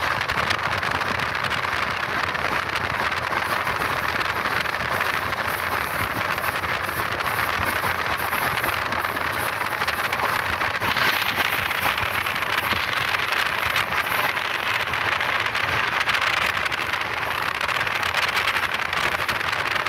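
Steady rush of wind and wheel-on-rail noise from a double-decker express train running at full speed, with the microphone out in the slipstream beside the coach.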